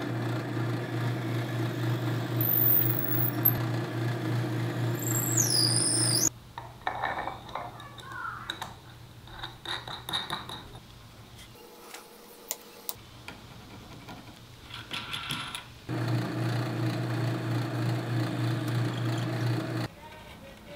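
Benchtop drill press running with a steady motor hum while the bit bores a hole in a wooden block, with a high wavering whine over it toward the end of the first run. Then come light clicks and taps of a bolt and nut handled against the wood. The drill press runs again for about four seconds near the end.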